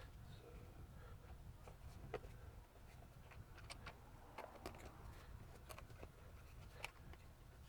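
Near silence: a low steady hum with faint, scattered clicks and light taps at irregular moments.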